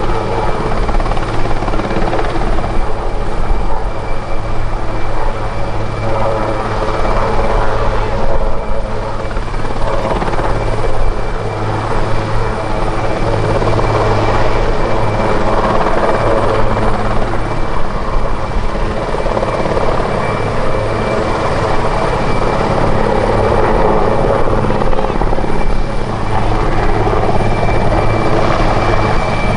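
Aerospatiale SA330 Puma twin-turboshaft helicopter hovering low and then climbing away. The rotor noise is loud and steady, with a constant high turbine whine running through it.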